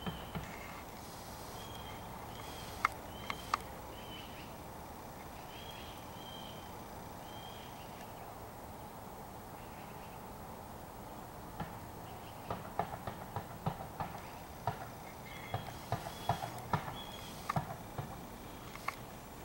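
A crow's beak tapping and pecking on a metal birdbath while it feeds: two sharp taps about three seconds in, then a run of quick irregular taps through the second half. Faint short high chirps come and go in the first half and again near the end.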